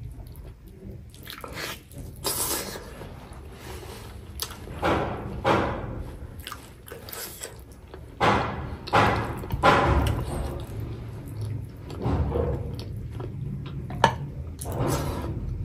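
Close-miked eating of curried chicken on the bone: bites, chewing and meat being pulled from the leg by hand, in irregular bursts of different strength.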